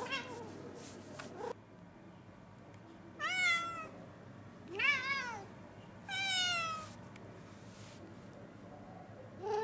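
Domestic cat meowing three times, each call a short rise and fall in pitch, about a second and a half apart, with another meow starting at the very end.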